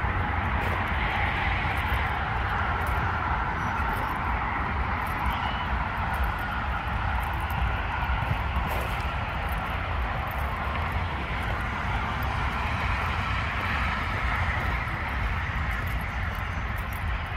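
Steady traffic noise from a nearby multi-lane road: a continuous rushing hiss over a low rumble.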